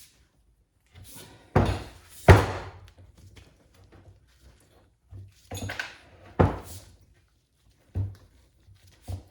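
A series of dull knocks and thumps, about six in all and unevenly spaced, as a stiff rubber boot is twisted and forced onto a driveshaft's double cardan joint.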